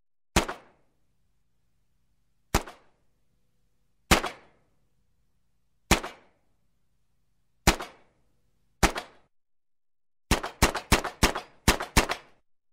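Handgun action being worked: sharp metallic clicks of the mechanism pulled back and released, each click followed by a smaller second tick. Six come one to two seconds apart, then a quick run of about eight clicks near the end.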